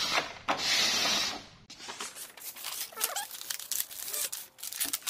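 A cardboard toy box being opened by hand: a tearing rush about half a second in, then a run of crinkles and clicks as the box and its plastic packaging are handled.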